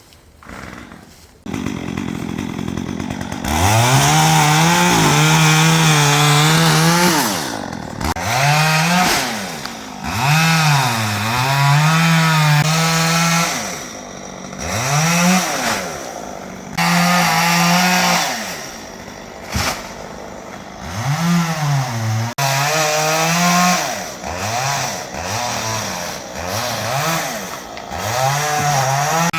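Two-stroke chainsaw running, revved up to full throttle and eased off over and over while cutting brush. It comes up to full speed about three and a half seconds in.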